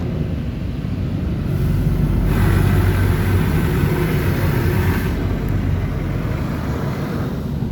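High-pressure water jets of an Oasis Typhoon car wash spraying the car's rocker panels. A rushing spray comes in about a second and a half in, is loudest from about two to five seconds, then fades back, over a steady low rumble.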